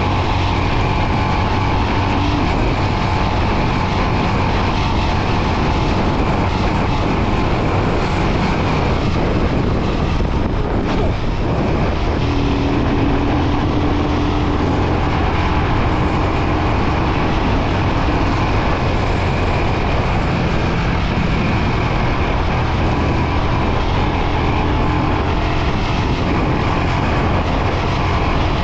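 Royal Enfield Himalayan 411's single-cylinder engine running steadily under way, mixed with a constant rush of noise.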